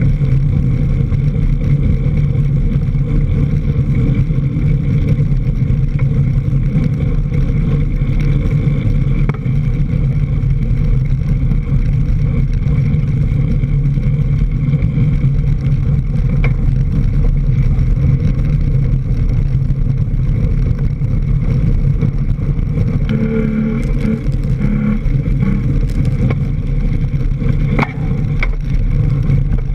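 Steady rumbling riding noise from a mountain bike moving fast over a dirt trail, picked up by a camera fixed low on the front fork: wind buffeting and tyre roll, with a few light clicks and rattles.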